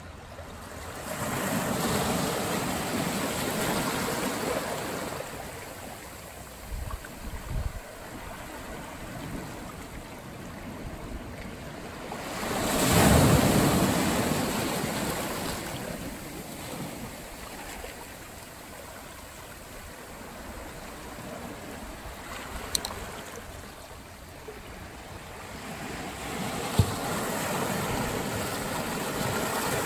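Ocean surf breaking and washing back in slow surges, the loudest wave about halfway through. Wind buffets the microphone with brief low rumbles.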